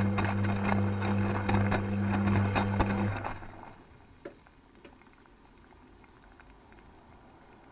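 Beko front-loading washing machine tumbling a full wet load on a 90 °C wash: the drum motor hums steadily while laundry and water slosh and knock in the drum, heard from inside the detergent drawer. About three seconds in the motor stops and the drum comes to rest, leaving near quiet with a couple of faint clicks.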